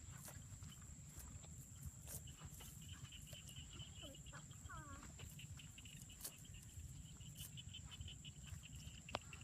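Faint open-air rice-field ambience: a steady, rapidly pulsing high chirping, a few short rising-and-falling animal calls about halfway, scattered light clicks, and a constant low rumble.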